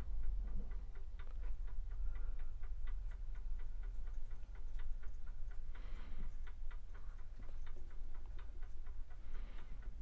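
A Rapido OO gauge Hunslet 0-6-0 saddle tank model locomotive running slowly along the track and through pointwork: a quick, uneven clicking of several ticks a second over a steady low hum.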